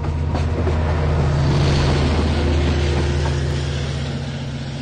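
The trailing DM30AC diesel locomotive running under power as it passes at the rear of the train: a steady low engine drone that swells to its loudest about a second and a half in, then fades as it moves away.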